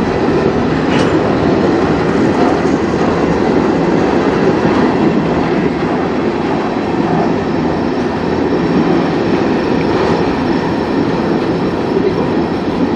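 Freight train's tank cars and covered hoppers rolling past close by: a steady rumble of steel wheels on rail, with a few faint clicks over the joints.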